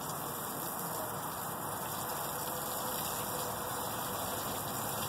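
Water spraying steadily from a garden hose nozzle onto potted plants.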